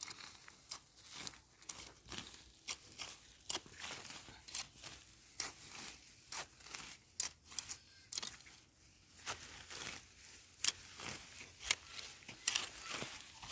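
Grass and plants being pulled and torn by hand, heard as a run of irregular snaps and rustles.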